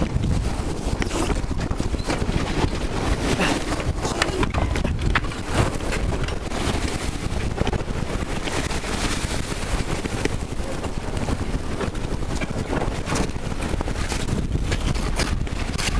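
Strong wind, about 25 knots, buffeting the microphone over the rush of water along a heeled C&C 39 sailboat's hull, with scattered clicks and knocks from the rigging and sail.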